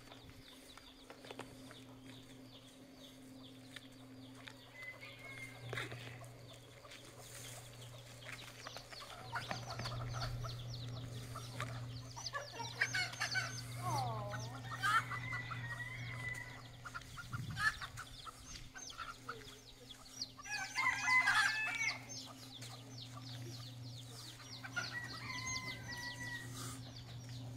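Chickens clucking and squawking in scattered bursts, loudest about halfway through and again about three quarters of the way in, over a steady low hum.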